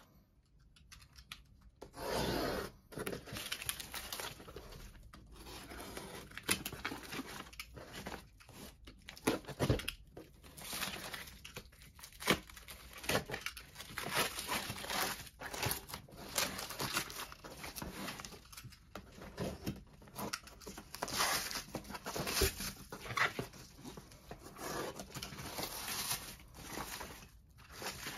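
Thin black plastic courier mailer being torn open and crinkled by hand: a run of irregular rips and rustles.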